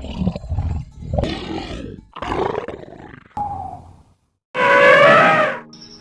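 A lion roaring in a series of about four rough calls, followed after a brief break by a louder, higher-pitched animal call about a second long near the end.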